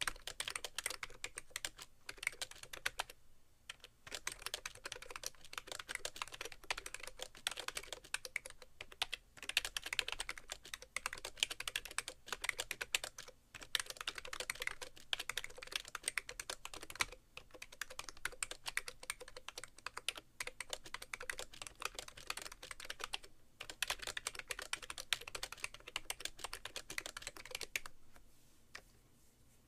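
Fast touch-typing, about 80 words a minute, on a BTC 5100c (Siig MiniTouch Plus) mini keyboard with rubber-dome switches and sliders, sitting bare on a keyboard tray. It is a dense run of key clacks with a few short pauses, and it stops about two seconds before the end.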